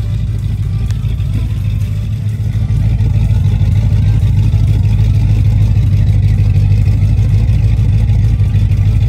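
An engine running at a steady idle: a low, even hum that gets louder about three seconds in.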